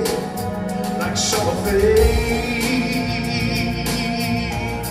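Live blues band playing electric keyboard and drums, with a man singing a held note about one and a half seconds in. A high wavering note carries through the second half.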